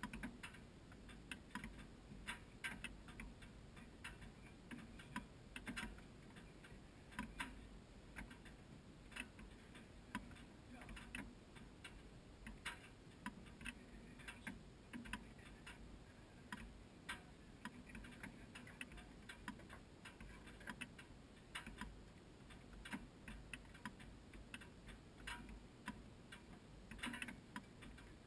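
Faint, irregular ticking clicks, about one or two a second, over a low, steady rumble.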